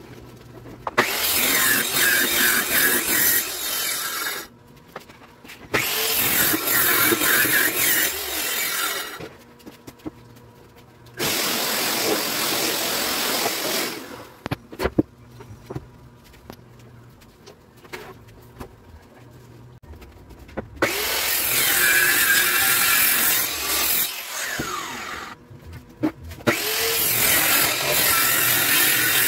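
Handheld power saw cutting through plywood sheets along a clamped straightedge guide, in five separate cuts of about three seconds each with quieter gaps between.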